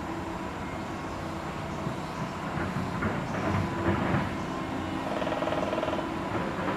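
Steady low rumble of distant traffic, with a few faint light taps in the middle.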